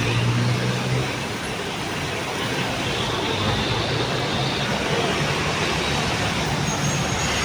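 Road traffic: a steady wash of vehicle noise with the low hum of engines.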